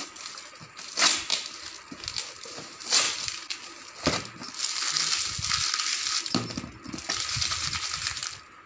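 Cardboard shipping box being handled with its plastic wrapping crinkling and rustling. There are sharp knocks about one, three and four seconds in, then a longer stretch of crackly rustling.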